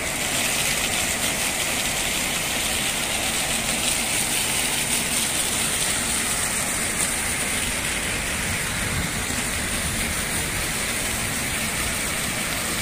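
Small fountain jets splashing steadily into a shallow pool.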